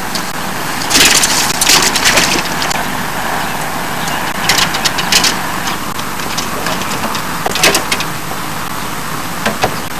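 Gear being handled in a small boat: several bursts of rustling, clicking and knocking over a steady hiss.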